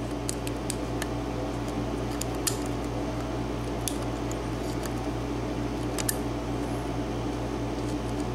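Steady hum of a small room air conditioner, with scattered faint metallic ticks from a lock pick and tension wrench working the pins of a Sargent cylinder lock.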